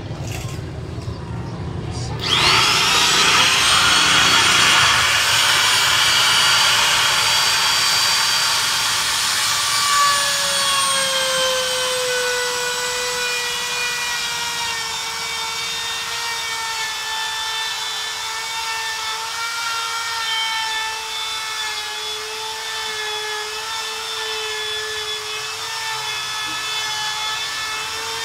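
Handheld electric router spinning up about two seconds in, then running with a steady high whine. Its pitch sags a little about ten seconds in as it takes load routing grooves in aluminium composite panel.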